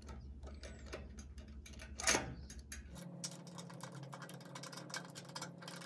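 Small irregular metal clicks and scrapes of bolts, washers and a nut being handled and lined up on the threads while a taillight lamp assembly is fitted, with one somewhat louder scrape about two seconds in.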